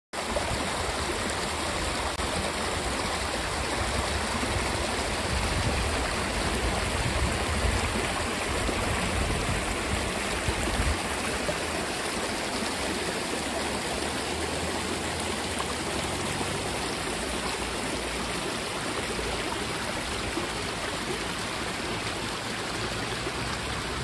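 Small waterfall and shallow stream rushing steadily over rocks. There is a low rumble under it for about the first half.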